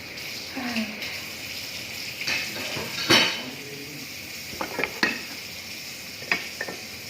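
Dishes and cutlery clinking and clattering as they are handled, a handful of sharp knocks, the loudest about three seconds in.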